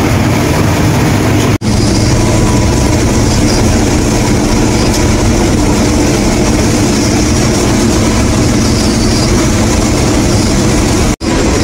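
Bizon combine harvester running steadily under load while cutting and threshing triticale, heard inside the cab as a loud, even machine drone. The sound drops out for an instant twice, a little under two seconds in and near the end.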